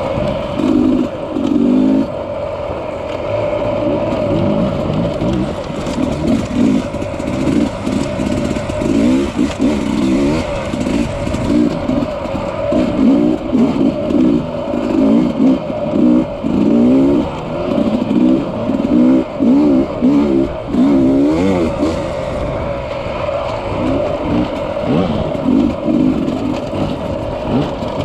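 Dirt bike engines running over rough trail, the throttle blipped up and down in many short rev bursts over a steady engine note.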